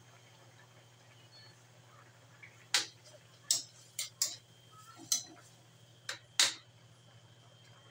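Metal spatula knocking and scraping against an aluminium wok while stirring fish in coconut milk: about seven sharp clatters through the second half.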